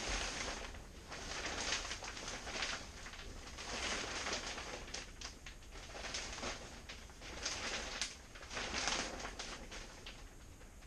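Plastic shrink-wrap film rustling and crinkling in irregular bursts as the large sheet is pulled and unfolded over the boat.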